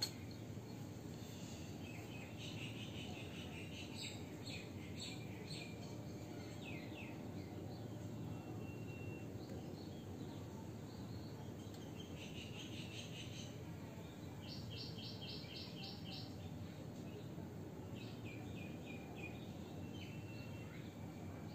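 Steady low background noise with birds chirping now and then in short runs of quick repeated high notes.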